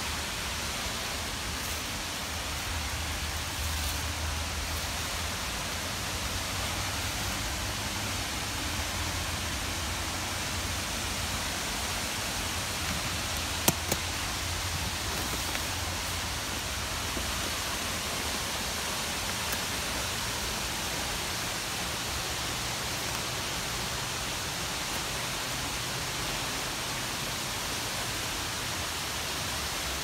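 A waterfall's steady rush of falling water. Two sharp clicks come close together about halfway through.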